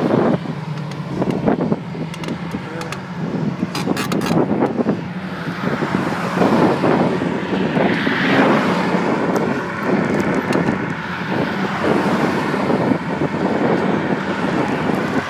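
Wind rushing over a phone's microphone on a moving bicycle, with road traffic underneath; a louder swell about eight seconds in as a car passes, and a few sharp clicks about four seconds in.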